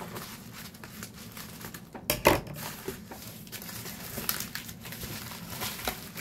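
Black plastic wrapping crinkling and rustling as it is handled and pulled out of a cardboard parcel, with a sharp, louder crackle about two seconds in.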